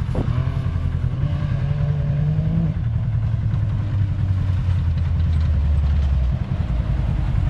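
Can-Am Maverick X3 side-by-side's turbocharged three-cylinder engine pulling under throttle. Its pitch climbs for the first two to three seconds, then drops and holds at a steady lower note.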